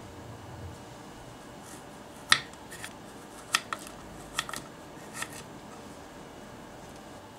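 Tiny miniature knife cutting a carrot into rounds on a wooden cutting board: about half a dozen short, sharp taps of blade through carrot onto wood, spread over a few seconds, the first one loudest.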